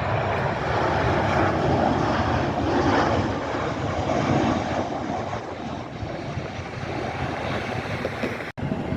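Jet airliner engines on an arriving flight, a steady rushing noise that is loudest over the first few seconds and eases off about six seconds in. The sound drops out briefly just before the end.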